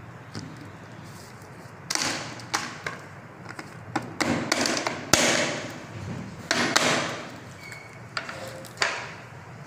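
A plastic chocolate mould being knocked face-down on a counter to release the set chocolates: about ten sharp knocks at uneven intervals, starting about two seconds in, each followed by a brief clatter of chocolates dropping onto paper.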